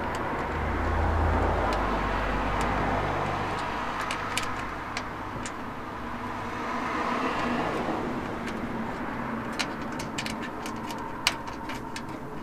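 Steady road-traffic noise, with a low vehicle rumble that swells and fades over the first three seconds. Scattered small sharp clicks come from a nut being threaded by hand onto a bonnet-scoop stud, more of them near the end.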